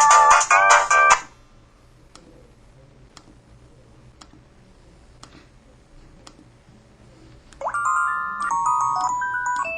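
LG KP3500 mobile phone ringtone melodies: one electronic tune cuts off about a second in, faint clicks follow about once a second, and a new high-pitched tune of quick notes starts near the end.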